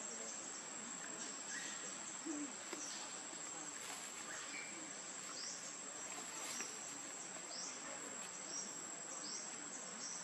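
Steady high-pitched insect drone of cicadas or crickets in forest, with short high chirps repeating about once a second from about five seconds in.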